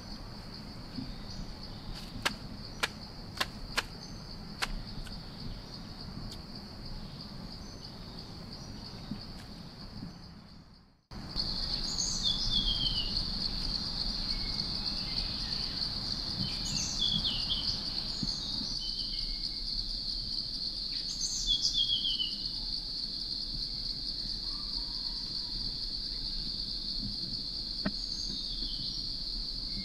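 Forest ambience: a steady high-pitched insect drone with birds calling in short, falling chirps. A few sharp clicks sound in the first part, then everything fades out and comes back louder about a third of the way in.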